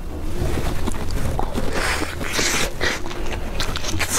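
Close-miked handling of soft durian flesh in clear plastic gloves, with a rustling, wet stretch about two seconds in, then a bite into the flesh near the end.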